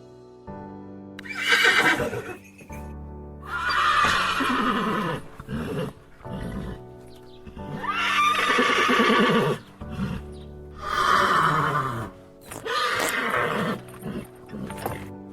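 Horses neighing: about five whinnies in a row, each sliding down in pitch, over background music.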